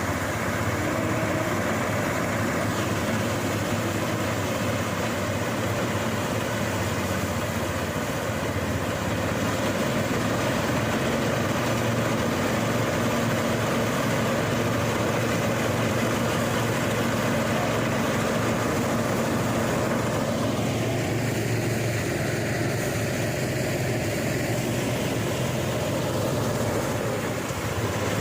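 Engine-driven rice threshing machine running steadily.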